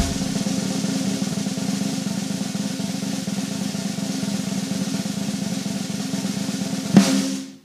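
Sustained snare drum roll, even and rapid, ending in one strong hit about seven seconds in that quickly fades out.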